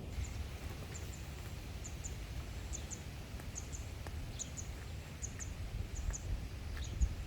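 Outdoor ambience with a steady low rumble and a small bird chirping over and over in short, high, paired notes.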